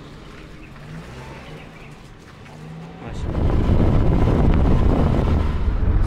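Quiet roadside air with a faint low engine hum, then, about three seconds in, a loud steady rumble of a moving car's road noise and wind buffeting the microphone starts abruptly.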